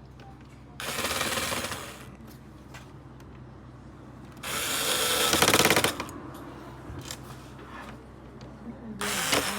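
Small electric screwdriver run in three short bursts, driving screws while the PS5 is reassembled; the middle burst is the longest and loudest, with rapid clicking.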